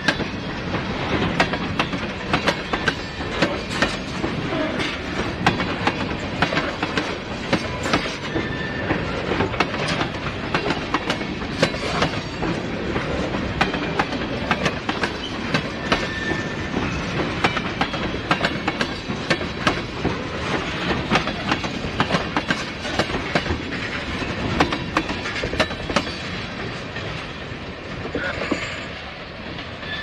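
Freight train cars (tank cars and covered hoppers) rolling past, their wheels clicking over rail joints in a busy clickety-clack over a steady rumble. Brief wheel squeals come a few times, and the sound eases near the end as the last cars go by.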